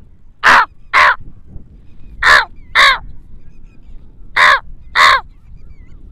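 A man imitating a crow's caw with his voice, hands cupped around his mouth: six loud caws in three pairs, the two calls of each pair about half a second apart.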